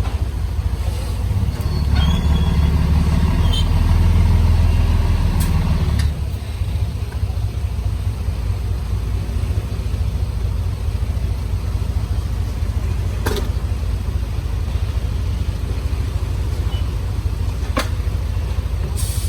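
Komatsu D31P bulldozer's diesel engine running steadily, working harder and louder for a few seconds about two seconds in. A few sharp metallic clanks come through.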